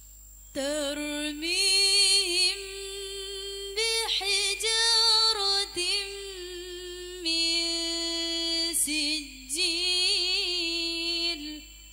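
A young woman's voice reciting the Quran in the melodic, chanted tilawah style through a microphone and loudspeaker. She sings long held, ornamented notes in several phrases, with brief pauses for breath.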